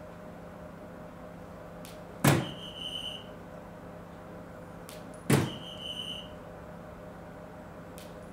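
Two soft-tip darts striking a DARTSLIVE electronic dartboard, about three seconds apart. Each sharp thud is followed by the machine's short electronic hit tone.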